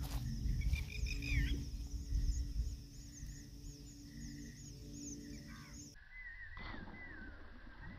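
Wind rumbling on the microphone for the first few seconds, with birds chirping and whistling repeatedly throughout.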